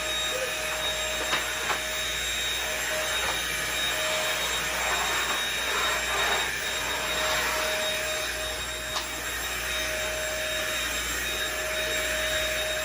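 Vacuum cleaner running steadily with a constant whine. A few light knocks sound over it early on and again near the middle.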